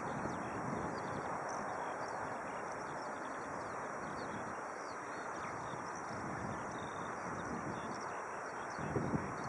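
Steady jet rush of a distant Airbus A319 airliner coming in to land, swelling slightly near the end, with small birds chirping faintly above it.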